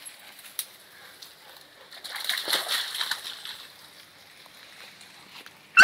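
Leaves and brush rustling and crackling as someone pushes through undergrowth, loudest about two to three and a half seconds in, ending in a sudden loud burst.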